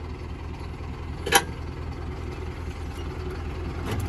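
Tractor diesel engine idling with a steady low throb, and a single sharp knock about a second and a half in.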